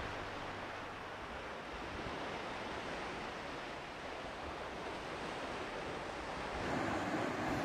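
Steady wash of sea surf breaking on rocks below a cliff, mixed with wind, growing a little louder near the end.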